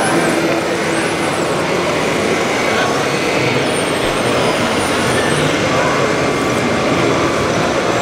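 Radio-controlled construction models working in a busy hall: a steady mechanical din, with a high electric motor whine that rises and falls a few times. Voices murmur underneath.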